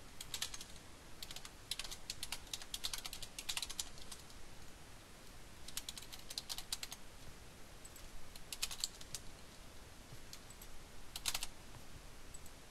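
Computer keyboard typing in several quick bursts separated by short pauses.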